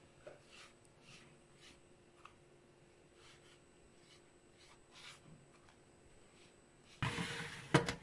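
Faint soft strokes of a silicone pastry brush spreading egg-yolk-and-milk glaze over raw pie dough on a baking tray. About seven seconds in there is a louder scraping rush and a knock as the metal baking tray goes into the oven.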